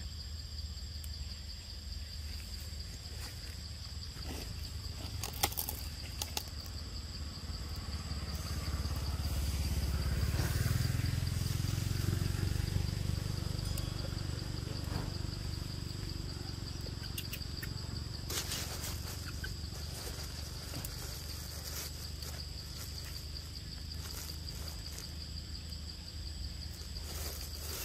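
Steady high-pitched insect drone holding one pitch throughout, over a low rumble that swells in the middle; a few brief clicks or rustles.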